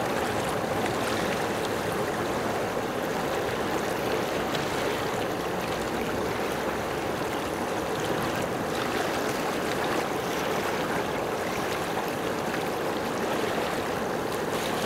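Steady rushing of choppy open water, small waves lapping and churning.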